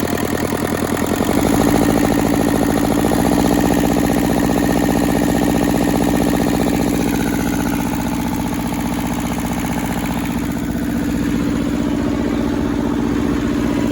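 Hinomoto compact tractor's Toyosha diesel engine running steadily. Its speed picks up between about one and a half and three seconds in, then holds at the higher speed. The engine is being run in to put a couple of heat cycles into oil dosed with Marvel Mystery Oil.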